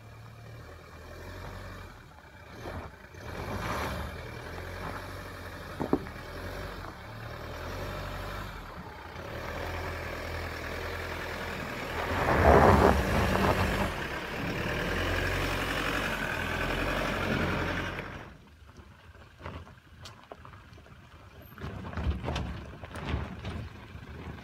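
Toyota HiLux SR5 pickup's engine labouring in low-range four-wheel drive as it climbs a rough gravel hill with active traction control on, with a loud surge partway through. Then it quietens as the truck creeps down a steep rocky track on Downhill Assist Control, with scattered knocks and crunches from the tyres on stones.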